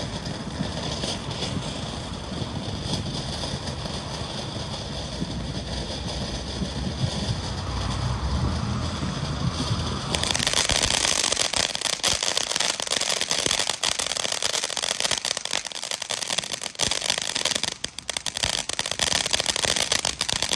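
Ground fountain firework hissing as it sprays sparks. About halfway through it turns louder and brighter, with a dense crackle of rapid pops.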